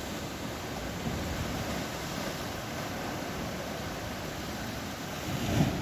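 Steady rush of Atlantic surf breaking on the shore, mixed with wind on the microphone, with a brief low bump near the end.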